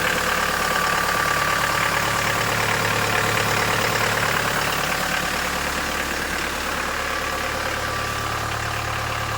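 2016 Chevy Colorado's 2.8-litre Duramax four-cylinder turbodiesel idling steadily just after a cold start at −2 °F, a little loud. It eases slightly quieter about six seconds in.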